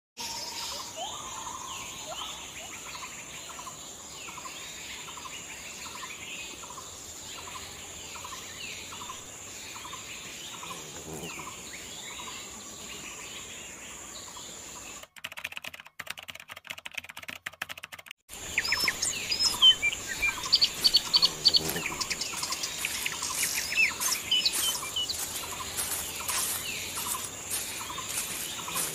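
Forest ambience: birds calling, one repeating a short call about twice a second, over a steady high insect drone. The sound cuts out for about three seconds midway, then returns louder with sharp crackling and clicking and brighter bird chirps.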